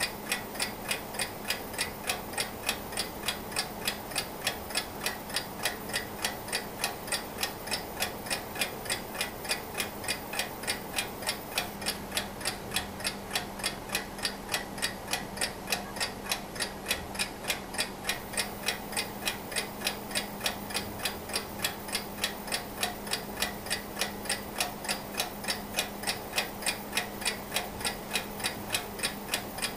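Antique Junghans mechanical alarm clock, German-made in the 1920s–30s, ticking steadily with rapid, evenly spaced ticks, about three a second.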